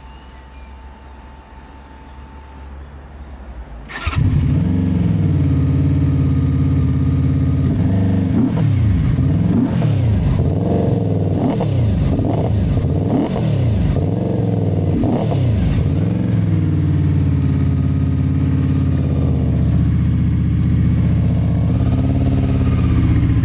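Benda Dark Flag 500 Commander's V4 engine with twin exhausts starting about four seconds in, then blipped up and down several times before settling into a steady idle.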